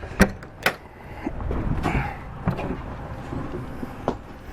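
Travel trailer entry door being opened: two sharp latch clicks within the first second, then a few seconds of low rumbling and scattered knocks as someone moves through the doorway.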